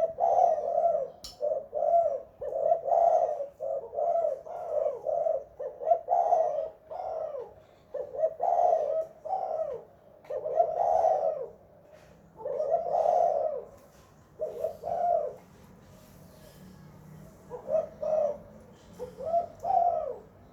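Spotted dove cooing: a long series of short coos, each rising and falling in pitch, breaking off for a few seconds about two-thirds of the way through, then a few more coos near the end.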